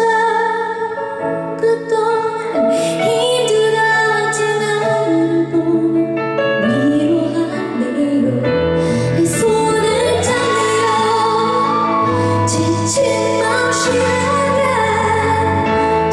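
A woman singing a slow ballad with long held notes and sliding pitch, over sustained instrumental accompaniment.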